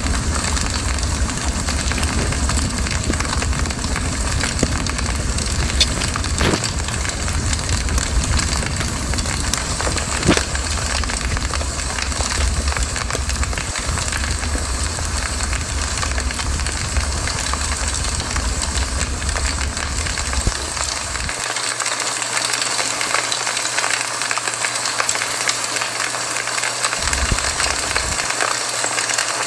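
Campfire crackling and hissing steadily, with occasional sharper pops. A low rumble underneath cuts off about two-thirds of the way through.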